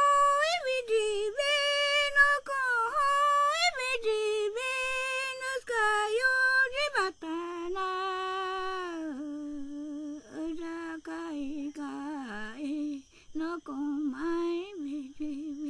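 A woman's voice singing unaccompanied, a chant-like melody of held notes with sliding pitch that moves down into a lower register about seven seconds in. A faint steady high tone sits behind it in the later part.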